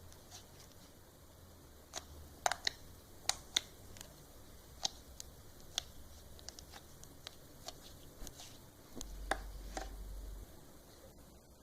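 Slime being handled, giving an irregular series of sharp clicks and pops, the loudest cluster about two to four seconds in. A low hum comes in about nine seconds in and lasts about a second and a half.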